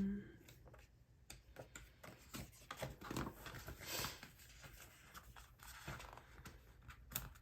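Soft rustling of paper sticker sheets with small scattered clicks and taps as stickers are handled and peeled, a little louder about three to four seconds in.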